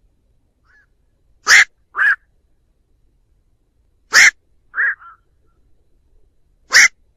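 Black-crowned night heron flock calls: short single calls, a loud one about every two and a half seconds, each followed about half a second later by a softer call.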